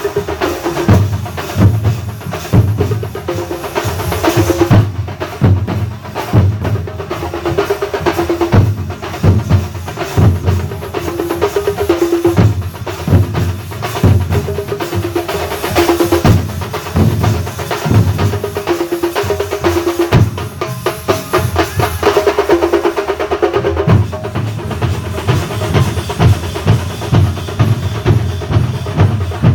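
Thambolam melam, a Kerala percussion band, drumming in a fast, steady rhythm with a melody played over the drums.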